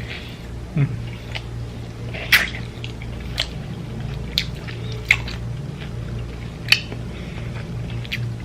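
Close-up eating sounds: a person chewing with sharp, wet lip smacks and mouth clicks about once a second, the loudest about two and a half seconds in, over a low steady hum.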